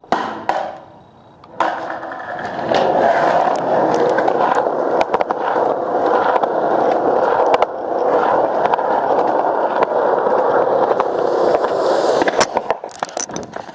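Skateboard wheels rolling steadily over rough concrete. Near the end the rolling breaks off into a series of sharp board clacks as the skater pops the board up toward a handrail.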